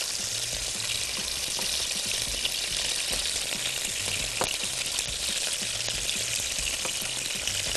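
Chunks of raw beef sizzling in hot oil in a pan: a steady frying hiss dotted with small crackles as the meat sears.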